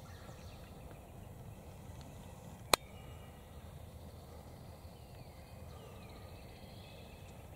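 Quiet spring woodland with faint short bird chirps, and a single sharp click about three seconds in, the loudest sound.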